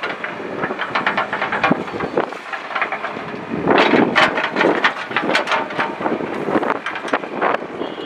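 ACE backhoe loader working its backhoe arm and bucket in rocky soil: engine and hydraulics running under a dense irregular clatter of metal and scraping earth and stones, loudest about four seconds in.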